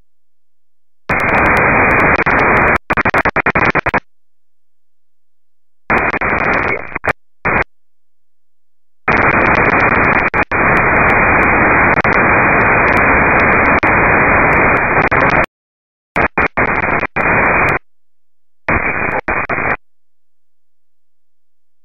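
FM radio receiver hiss from a software-defined radio tuned to 145.925 MHz in the 2 m amateur satellite band. The squelch opens and closes, giving several bursts of static that start and cut off abruptly, the longest about six seconds in the middle.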